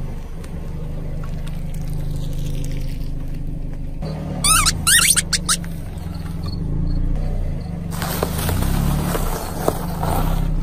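A car idles with a low, steady hum as its tyre rolls slowly over objects. About halfway through there are a few high, sliding squeaks, as rubber ducks are squashed under the tyre. From about two-thirds in, crackling and crunching is heard as a crunchy item breaks under the wheel.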